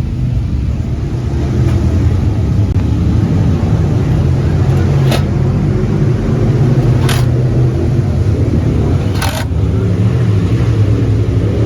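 Loud, steady rumble of motor engines running, with three short sharp cracks about two seconds apart partway through.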